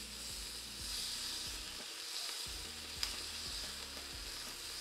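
Chicken pieces frying in a pan over low heat, a steady sizzle, with one sharp click about three seconds in.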